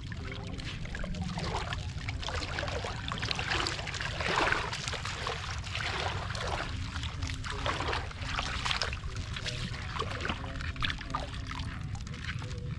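Water splashing and sloshing as a woven bamboo basket is dipped into shallow muddy water and lifted out, water draining through the weave, with a cluster of splashes in the middle and the loudest about four seconds in, over a steady low rumble.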